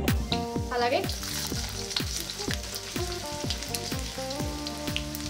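Chopped garlic sizzling and crackling in hot oil in a kadai, over background music with a steady beat.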